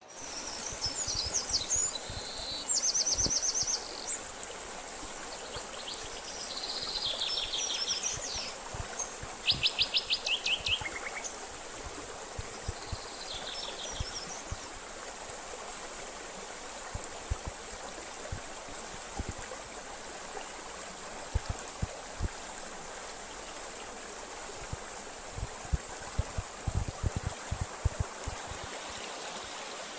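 Running stream with a steady rushing sound, and songbirds singing over it in the first half: short, rapid, high-pitched trills and chirps, after which only the water remains. Scattered low thumps come in the second half.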